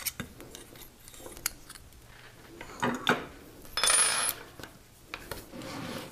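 Small metal jewellery tools and parts being handled: light metallic clicks and clinks as a hand hole punch and a freshly punched copper disc are moved and set down, with a brief scrape about four seconds in.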